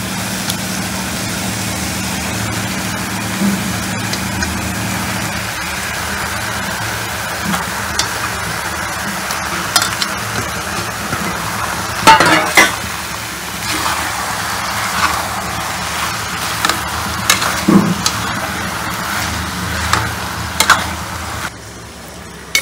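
Chicken pieces and onion-tomato masala frying in a pressure cooker with a steady sizzle. A metal spoon stirs and knocks against the pot a few times, and the sizzle turns quieter near the end.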